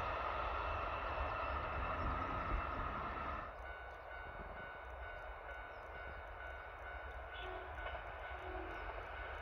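Kintetsu electric train running on the line, a steady running noise with a whine in it as it draws away. About three and a half seconds in, the sound drops abruptly to a much quieter, distant train noise over a steady low rumble.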